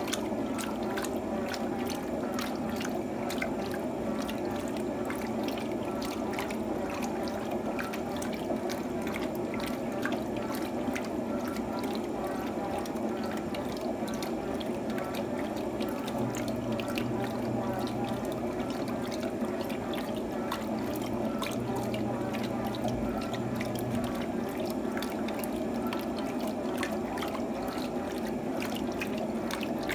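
Electrolux TOP8A washing machine with water splashing and trickling in its drum, a steady wash of sound full of small drips. A low hum under it grows stronger for several seconds past the middle.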